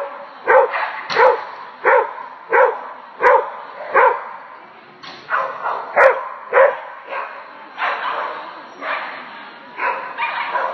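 Dog barking repeatedly, about fifteen sharp barks. They come evenly, roughly one every 0.7 s, for the first four seconds, then more irregularly.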